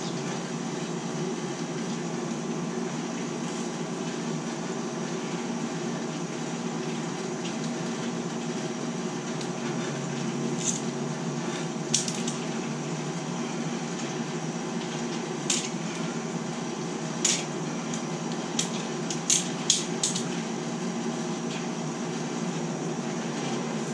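Sharp metallic clicks and taps of a tool and fingers on a water-line hose fitting: a few about ten seconds in, then a cluster near the end. A steady low hum runs underneath.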